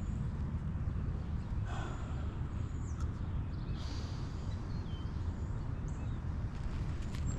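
Wind buffeting the microphone: a steady low rumble, with a few short high chirps, likely birds, and a brief rustle about two seconds in.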